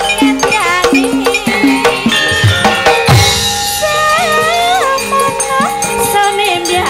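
Javanese gamelan music in a lively campursari style, with kendang drum strokes whose low thuds fall in pitch, sustained metallophone tones and a high wavering, ornamented melody line. A cymbal-like crash comes about three seconds in.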